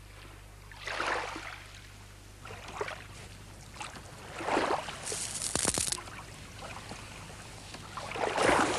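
Small sea waves washing up on a sandy shore, coming as swells of hiss every couple of seconds. There are a few faint clicks near the middle.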